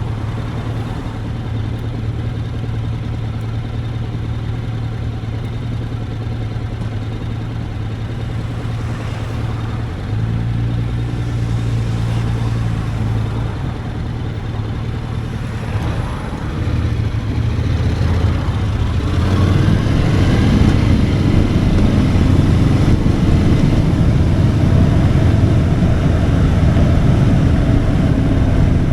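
Motorcycle engine running steadily while riding, its note shifting a few times and getting louder and rougher from about two-thirds of the way in.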